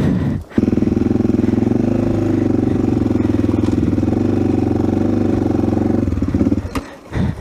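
Single-cylinder engine of an AJP PR7 trail motorcycle running steadily at an even pitch. It comes in abruptly about half a second in and falls away about six seconds in.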